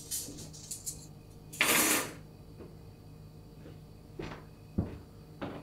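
Clicking and rattling of small objects being handled, then a short, loud rushing noise about two seconds in. Near the end come three soft thuds about half a second apart, fitting footsteps on a hard floor.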